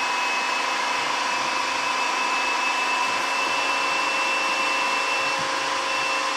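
Anex electric food processor running steadily, a loud even motor whine and whirr as it purées a batch of thick cooked lentils.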